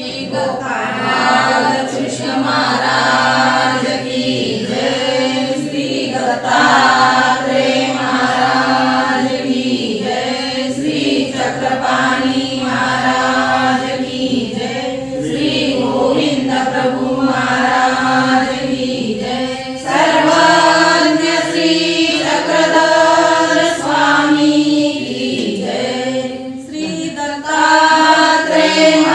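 A group of voices singing a devotional hymn together in a chant-like melody.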